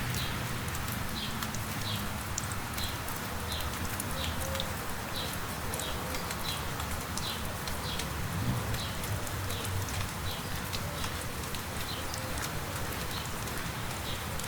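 Light rain hissing and pattering in sharp drip ticks, while a bird calls over and over with short high falling notes, about two a second.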